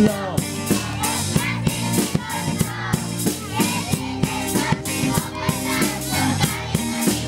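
Live band playing through loudspeakers: a drum kit keeps a steady beat under bass and electric guitar.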